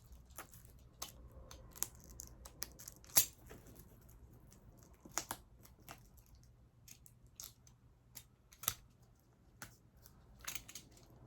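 A cardboard package being opened by hand: irregular sharp clicks, snips and short rustles of box, tape and wrapping, the loudest about three seconds in.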